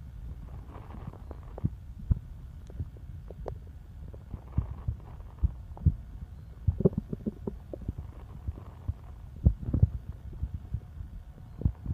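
Stomach and bowel gurgling: a low, continuous rumble with irregular short pops and squelches, bunching into louder flurries about seven seconds in and again near ten seconds.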